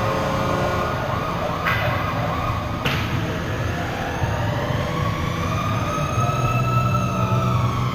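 Ice hockey rink during play: a steady low hum, with two sharp clacks about a second apart early on. In the second half a faint tone slowly rises and falls.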